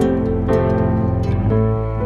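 Background music: a gentle plucked-string tune, with a new note about every half second over a sustained low bass.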